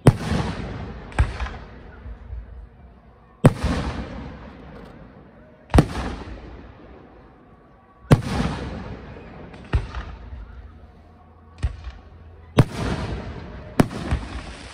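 Aerial firework shells bursting overhead: about nine sharp bangs at uneven intervals, each trailing off in a fading rumble and echo.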